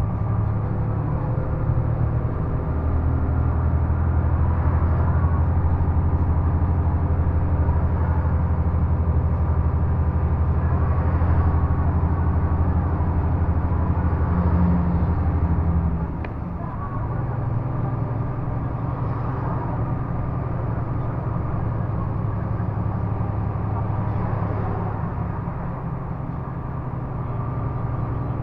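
Volvo truck's diesel engine and road noise heard from inside the cab while driving on a highway: a steady low drone. About halfway through it drops a little in level and shifts in pitch, then runs on evenly.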